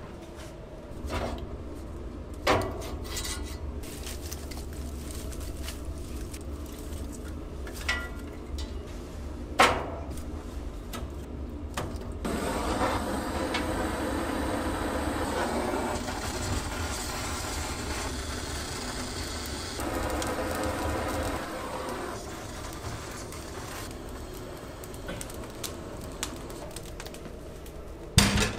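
A few wooden knocks as split logs are handled in a steel smoker firebox. Then a handheld butane torch hisses steadily for about ten seconds as it lights the logs. Near the end comes a loud metal clank from the firebox door latch.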